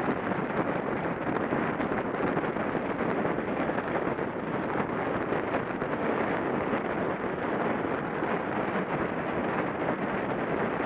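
Steady rush of wind over the camera's microphone from a track bicycle riding at about 28 mph in a paceline on a wooden velodrome track, with the tyres' rolling noise mixed in.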